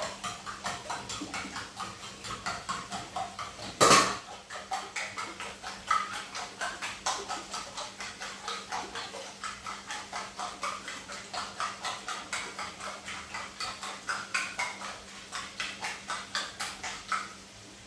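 Raw eggs being beaten in a bowl, the utensil clicking against the bowl about four or five times a second, with one louder knock about four seconds in.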